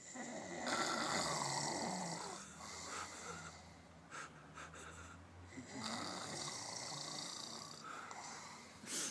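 Snoring: two long snores about five seconds apart, with a quieter low drone between them. A short, loud sound right at the very end.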